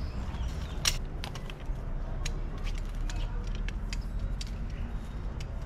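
Scattered light clicks and taps at an irregular pace, the sharpest about a second in, over a steady low rumble.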